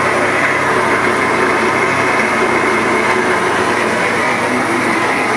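Electric mixer-grinder (mixie) running steadily at full speed, its blades grinding onion, tomato, ginger and coriander into a wet paste.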